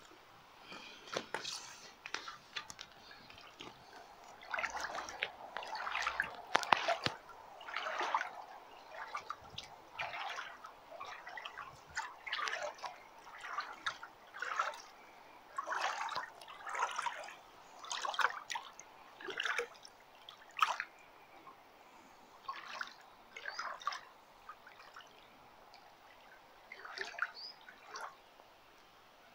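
Seafarer rubber sailing wellies wading through shallow paddling-pool water, each step sloshing and splashing, about one step a second. The steps pause briefly twice near the end.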